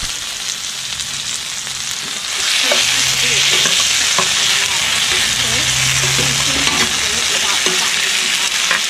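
Sausages and baked beans sizzling in a cast-iron frying pan on a wood-burning stove while a spoon stirs them. The sizzle grows louder about two seconds in.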